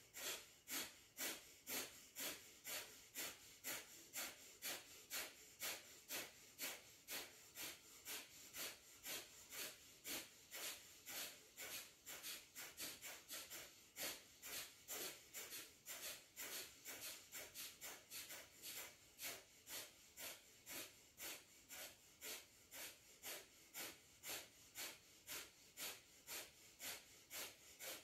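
Rapid, forceful exhalations through the nose in yoga pulse breathing (kapalabhati): a steady run of short, sharp hissing puffs at about two a second.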